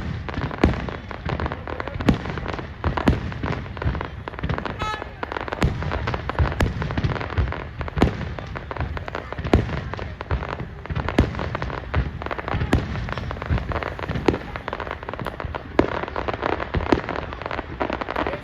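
Fireworks display: aerial shells going off in quick succession, many sharp bangs and booms a few tenths of a second to a second apart, over a continuous rumble and crackle.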